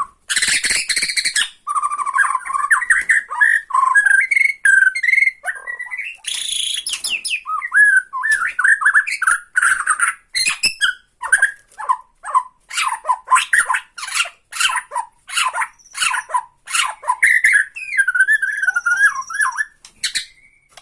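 Bornean white-crowned shama (murai batu Borneo) singing a varied song of whistled phrases broken by quick runs of short, rattling 'tretekan' notes, the kind of song used to rile rival shamas.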